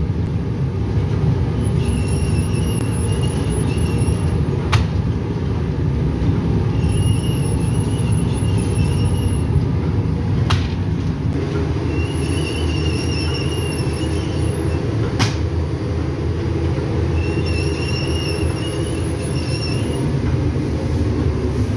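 Automated tafton bread-baking machinery running with a steady low rumble. A high metallic squeal, one to two seconds long, comes back about every five seconds, and a sharp click falls between the squeals.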